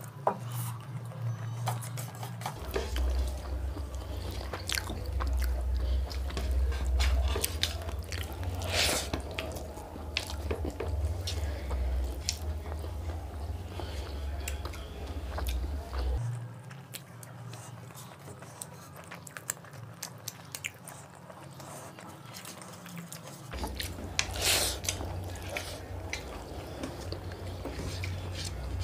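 Close-up eating sounds of two people eating fried rice and curry with their hands: chewing, lip smacks and the wet squish of rice being mixed and scooped, heard as many small clicks. A low rumble comes and goes, first for most of the first half and again near the end.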